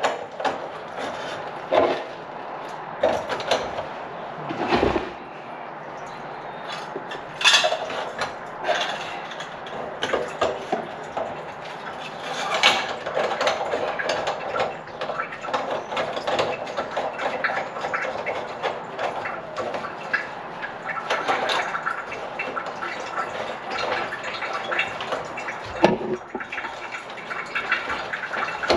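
Brass sink drain pipes being handled and fitted back together under a kitchen sink: scattered clinks, knocks and scraping, with a steady hiss rising about halfway through.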